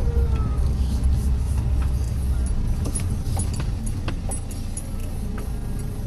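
Car running along a street: a steady low engine and road rumble, with scattered light clicks and rattles over it.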